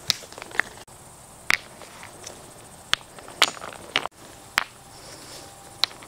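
Stones clacking against each other as they are set down one at a time to build a campfire ring: about eight sharp, irregularly spaced knocks.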